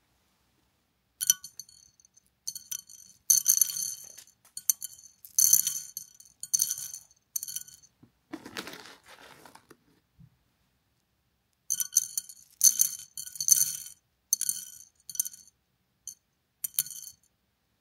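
Dried beans dropping by the handful into a ceramic dish: clusters of hard, clattering clinks with a bright ring. A softer, lower rustle comes a little past the middle, then about two seconds without sound before the clattering starts again.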